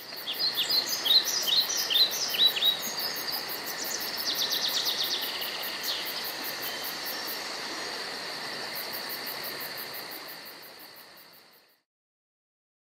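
Birds chirping over a steady hum of insects: a run of quick falling chirps, then a short fast trill. The sound fades in at the start and fades out about eleven seconds in.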